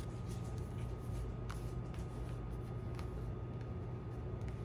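Faint ticks of tarot cards being handled as the bottom card of the deck is turned over, above a steady low hum.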